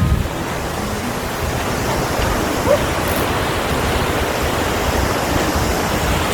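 River water rushing and cascading through rock potholes: a steady, loud rush of water.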